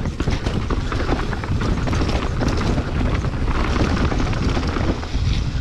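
Mountain bike descending a rough dirt trail at speed: the tyres rumble over dirt and roots while the chain and frame clatter in quick, irregular knocks.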